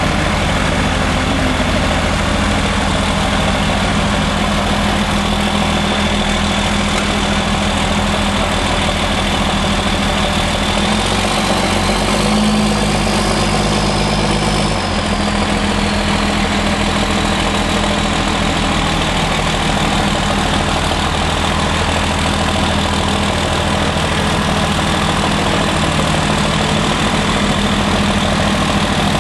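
Diesel engines of a small four-wheel-drive Yanmar tractor and a Dodge Ram 3500 dually pickup running together under load as the tractor tows the stuck truck. The engine note shifts about halfway through, with a faint high whine that rises and falls.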